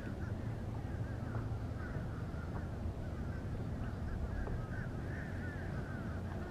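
A flock of birds calling, many short overlapping calls one after another, over a low steady rumble.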